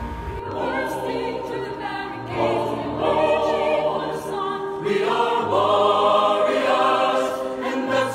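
A choir singing sustained chords as background music, each chord held for a second or more, growing louder from about two seconds in.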